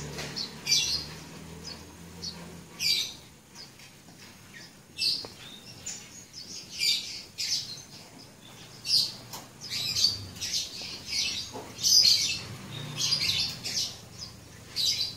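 Birds chirping: short, high chirps repeating irregularly, about once or twice a second.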